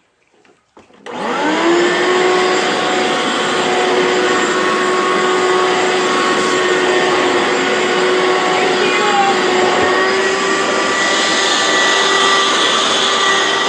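Hoover upright carpet cleaner switched on about a second in: its motor spins up and then runs steadily with a whine.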